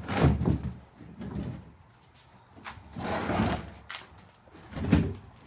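Hollow molded-plastic toddler bed parts being handled and fitted together: a few knocks and clatters, a longer sliding rub in the middle, and a bump near the end as the bed body is set onto its wheel pieces.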